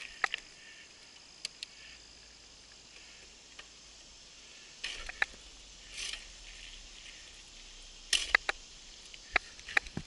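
Mountain bike rolling on a paved road: scattered sharp clicks and rattles from the bike as it goes over bumps, a cluster of them about eight seconds in, over a faint steady hiss.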